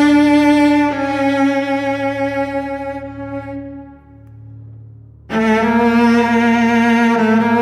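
Solo cello playing slow, sustained bowed notes in a dark, sombre piece over a steady low drone; one long note fades away, then about five seconds in the cello comes back in at full strength.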